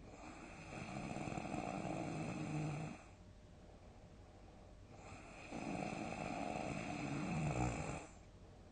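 A sleeping person snoring loudly: two long snores about five seconds apart, each lasting about three seconds, growing louder and then stopping abruptly.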